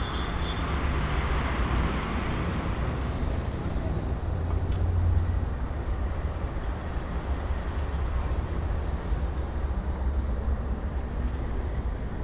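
City street traffic: a steady low rumble of vehicles going by, with one swelling up and fading in the first few seconds and another low surge a little later.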